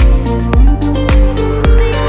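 Background music with a steady beat: a kick drum about twice a second under held melodic notes.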